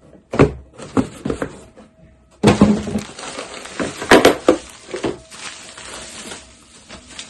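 A boxed hand tool being handled and unpacked: a few knocks, then a longer stretch of rustling and scraping packaging with clinks and clatter, easing off near the end.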